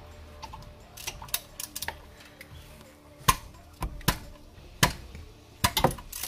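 A hand ratchet with a 13 mm socket clicking as it loosens an oil drain plug: a quick run of small clicks about a second in, then single sharper clicks roughly every three-quarters of a second.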